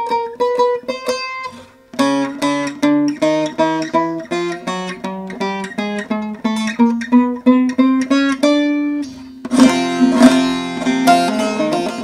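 Short-neck bağlama with a mulberry bowl and spruce top being played through its frets: single picked notes step upward, then after a short break about two seconds in comes a quick run of picked notes over a steady low drone, turning into dense strummed chords near the end.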